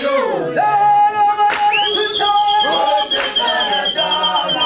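Unaccompanied voices singing together, with a high wavering note held from about two seconds in.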